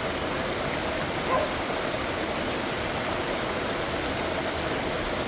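Waterfall water rushing in a steady, unbroken roar, with one short high note a little over a second in.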